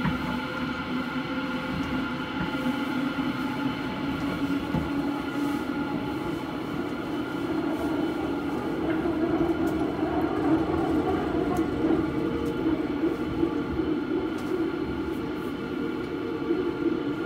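Busan Metro Line 2 subway train running, heard from inside the car: a steady rumble from wheels and track, with a humming tone that rises slowly in pitch.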